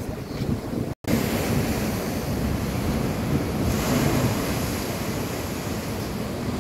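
Heavy swell at a high spring tide breaking against a seawall: a continuous rush of surf, with a wave crashing up in a burst of spray about four seconds in. Wind buffets the microphone. The sound cuts out for an instant about a second in.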